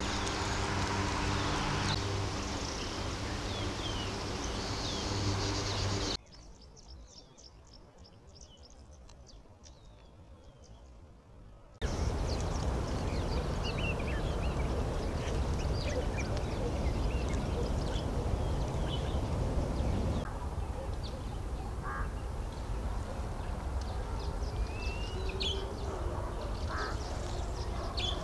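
Outdoor birdsong: many short chirps and calls from small birds over a steady low background noise, in several separate recordings joined by abrupt cuts, one stretch much quieter than the rest.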